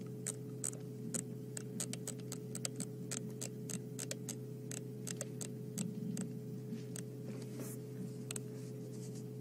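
Irregular sharp clicks, two to four a second, over a steady low hum.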